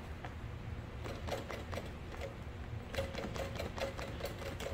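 Juki sewing machine stitching slowly, its needle ticking a few times a second in short runs over a steady motor hum, topstitching the seam of a tote bag.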